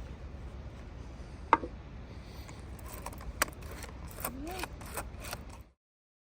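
Sharp clicks and knocks of hard parts being handled over a steady low rumble: one loud click about a second and a half in, another a couple of seconds later, then a quick run of clicks with a brief squeak-like glide. The sound cuts off suddenly near the end.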